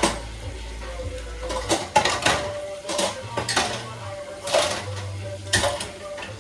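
Dishes and cutlery clinking and knocking together as they are washed by hand in a kitchen sink, in irregular clatters about once a second.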